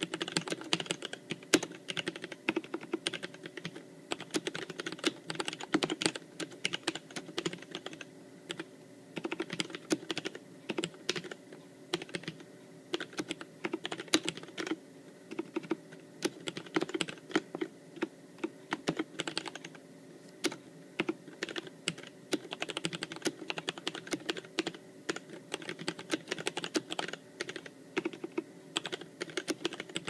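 Steady fast typing on a custom mechanical keyboard with lubricated Cherry MX Red linear switches, white blank keycaps and a clear acrylic case. It makes a dense stream of key clacks with a few short pauses.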